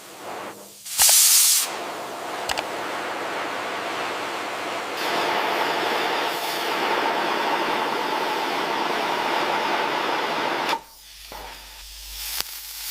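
A sharp, loud burst of hissing about a second in, then a steady hissing rush for about nine seconds that grows stronger halfway through and cuts off suddenly.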